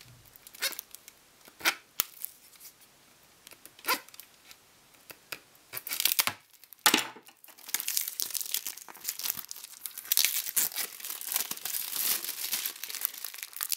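Scattered clicks and knocks as a plastic CD case is handled, then from about eight seconds in a long run of crinkling and tearing as the clear plastic shrink-wrap is cut and pulled off the case.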